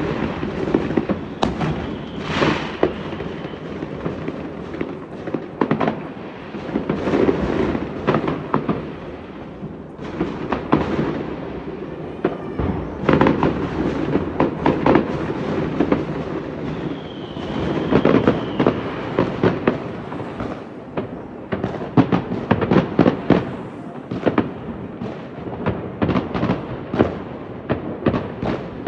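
Fireworks going off in quick, continuous bangs and crackles, with a high whistle rising over them twice, about two seconds in and again past the halfway point.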